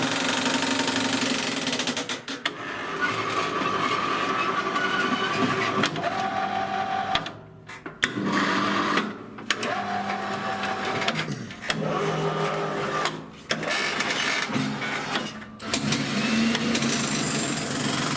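Jackhammer attachment of a homemade electric power shovel running, a rapid mechanical hammering with a motor whine that shifts in pitch. It cuts out briefly several times, about two, seven and a half, thirteen and fifteen seconds in.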